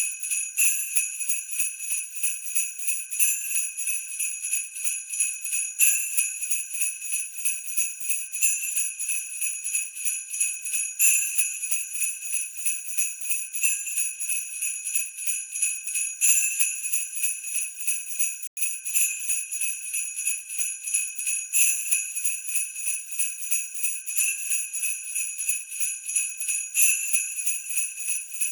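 Sleigh bells shaken continuously in a steady jingling rhythm, with a stronger accent about every two and a half seconds. The sound cuts out for an instant about two-thirds of the way through.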